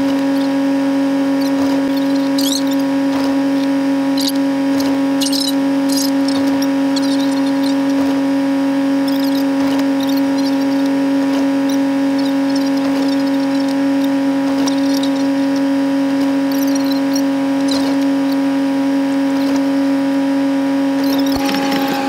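Steady, unchanging mechanical hum of an idling vehicle heard from inside its cab, with scattered short, faint high squeaks and ticks.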